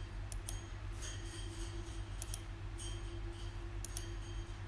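Computer mouse clicking several times at irregular intervals, over a steady low electrical hum from the recording setup.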